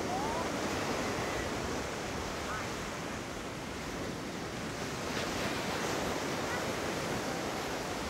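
Steady wash of surf and wind, with faint distant voices of people on the beach.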